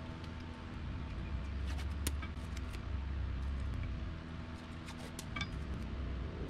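Steady low motor hum with scattered light clicks and metallic clinks, like a blade and tools being handled.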